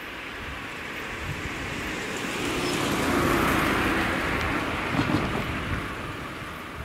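A passenger car driving past close by, its engine and tyre noise swelling and then fading as it moves away. A few low knocks about five seconds in, as its wheels bump over the level-crossing rails.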